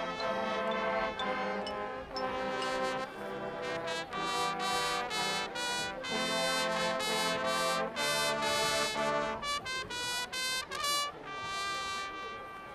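High school marching band brass (trumpets, trombones and horns) playing loud held chords that change every second or so. The full sound thins out to a lighter texture over the last few seconds.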